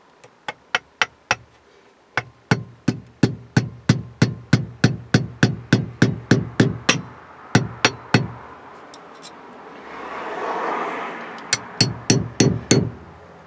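Small hammer tapping a roll pin into the distributor's drive gear and shaft, a steady run of light metal taps about four a second. The taps stop for a few seconds, then a handful of quicker taps come near the end.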